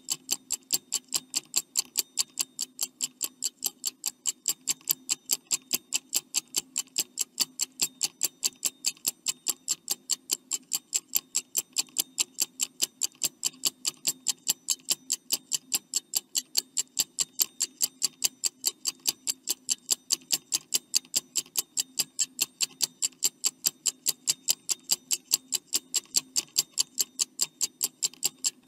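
Stopwatch ticking sound effect, fast and even at about three ticks a second, counting down the time to answer a quiz question.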